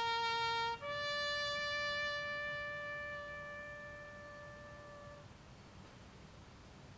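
Lone brass bugle call: a note held for just under a second, then a step up to a final long note held for about four seconds that slowly fades away.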